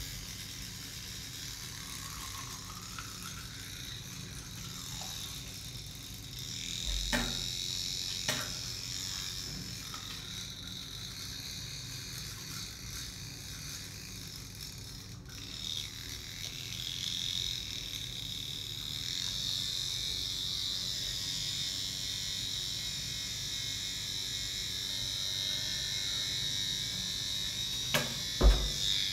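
Child's battery-powered toothbrush buzzing steadily while brushing teeth. A few sharp knocks break in, the loudest near the end.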